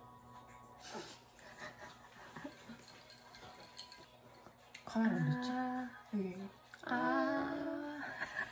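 A woman's voice making two long, drawn-out wordless sounds, about five and seven seconds in, after a quiet stretch with a few light clicks.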